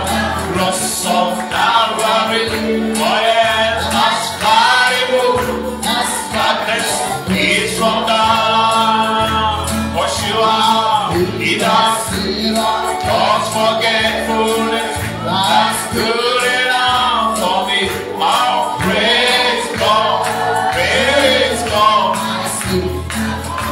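Gospel worship song: voices singing together over instrumental backing, with a steady pulsing bass beat.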